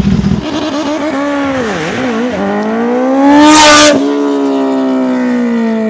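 Sportbike engine revving under a launch-control start: the pitch dips, then climbs hard to a loud peak about three and a half seconds in, then falls away steadily as the bike pulls off.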